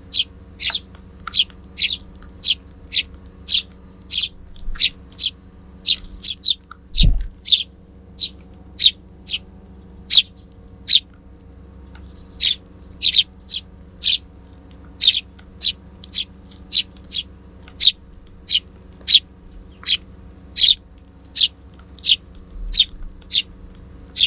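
Sparrow chirping over and over in short, sharp notes, about two a second, with a short pause near the middle. A single low thump comes about a third of the way through.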